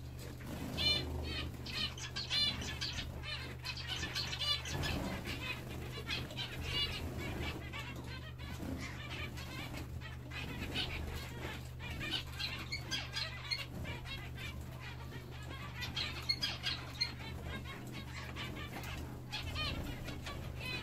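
Zebra finches bathing in a shallow bird bath: wing flutters and splashing in the water, with many short, repeated calls from the finches.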